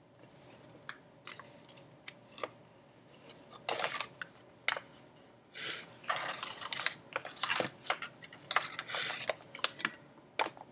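A sheet of printer paper rustling and crinkling as it is handled and folded: scattered light crackles at first, then busier bursts of rustling from about a third of the way in.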